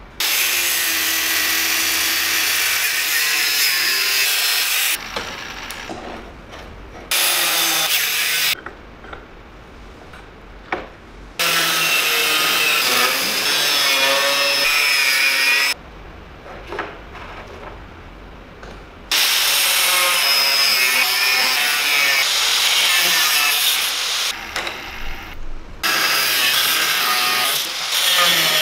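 A power tool running on a workpiece in five bursts of a few seconds each, starting and stopping abruptly, with quieter handling clicks in the pauses between.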